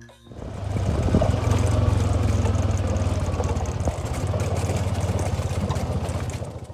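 An engine running steadily with a loud low drone and a fast, even pulse. It starts and stops abruptly.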